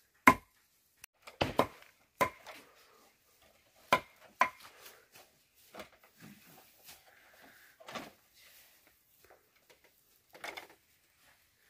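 Irregular sharp knocks and clacks of wood and bamboo, about a dozen spread unevenly, the loudest near the start and about four seconds in, from work on a bamboo ladder and timber roof frame.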